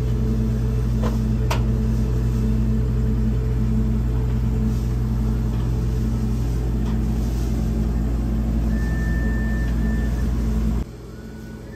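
A steady, loud low hum with a faint, evenly pulsing drone above it, like machinery running. It drops away suddenly about eleven seconds in.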